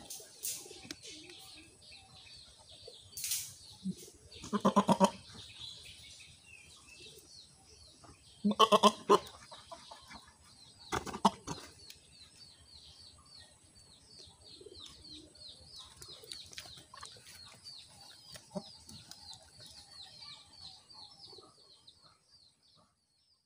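Goats bleating: two loud, wavering bleats, each under a second long, about five and nine seconds in. A long run of faint, evenly repeated high chirps carries on through the second half.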